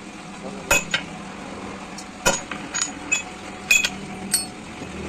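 Metal striking metal: about eight sharp, irregular clinks and taps, each with a brief high ring.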